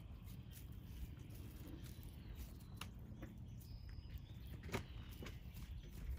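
Faint outdoor ambience of foraging chickens: a low steady rumble with a few soft ticks as the hens peck and scratch in the grass and straw, the clearest about three seconds in and near the end.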